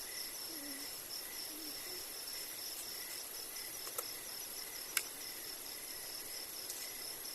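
Insects chirring steadily, a continuous high whine layered with a fast pulsing trill. Two sharp clicks sound about four and five seconds in.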